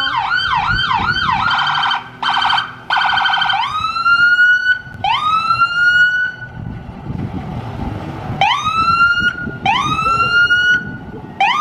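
Fire truck's electronic siren switching between patterns: a fast yelp, then a rapidly pulsing steady tone with short breaks, then a string of separate rising whoops that each climb, hold for about a second and cut off. A low vehicle rumble sits underneath in the middle.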